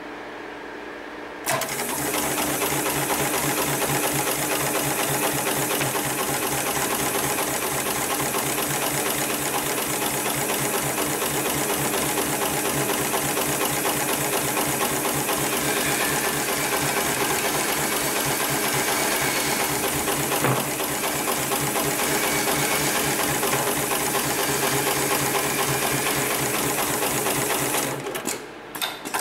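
HIGHTEX 7273PLK automated heavy-duty pattern sewing machine stitching a box pattern through thick nylon safety-harness webbing. It starts about a second and a half in, runs at a fast, even stitch rate, and stops near the end with a few clicks.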